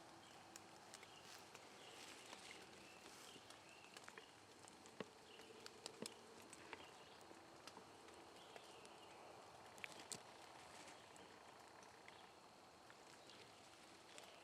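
Near silence: quiet woodland background with faint distant bird calls and scattered small ticks and rustles.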